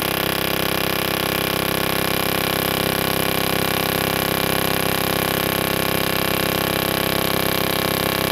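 Aftermarket boost control solenoid cycling rapidly in continuous-pulse mode, driven by a fuel injector tester: a steady, even chatter with air hissing from its vent as it opens and closes.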